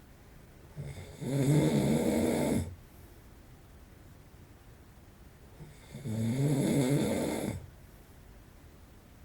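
An adult man snoring in his sleep: two long, pitched snores, each lasting about two seconds, the first about a second in and the second about six seconds in.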